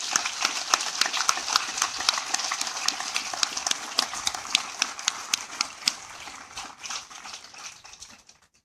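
Audience applauding, dense clapping that gradually thins and dies away near the end.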